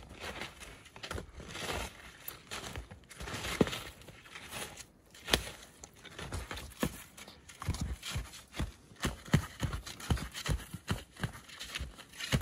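Altai Hok skis crunching and swishing through deep fresh snow, stride after stride, with the poles planting. The thuds of the steps come faster and more regularly in the second half.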